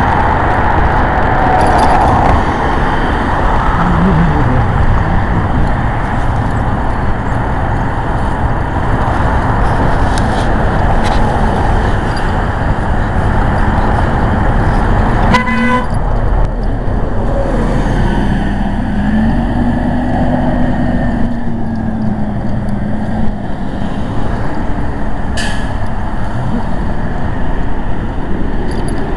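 Loud, steady noise of a moving road vehicle, with a brief horn-like toot about halfway through.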